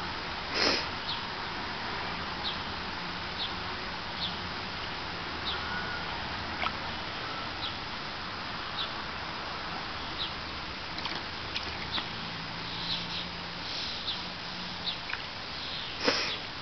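Shallow water splashing as a Savannah cat paws and wades in a plastic kiddie pool, with a louder splash about a second in and another near the end. Short high chirps are scattered throughout over a steady hiss.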